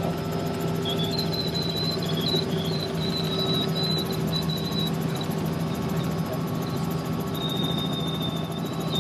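Helicopter in flight heard from inside the cabin: a steady low drone from the rotor and engine, with a thin high-pitched whine that keeps breaking off and coming back.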